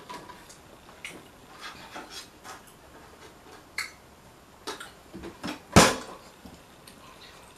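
Sounds of eating tacos at a table: scattered short clicks and crunches from biting and chewing and from handling the dishes. The loudest is a single sharp one nearly six seconds in.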